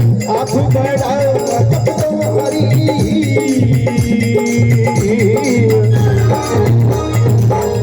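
Instrumental passage of devotional folk music: a wavering melody line over steady rhythmic percussion with a shaker-like rattle.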